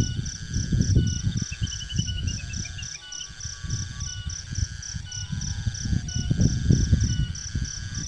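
Insects calling steadily in a rapid pulsing rhythm, with other repeating chirping calls, and a bird giving a descending run of about ten quick notes around two seconds in. A loud irregular low rumble, like wind on the microphone, runs underneath.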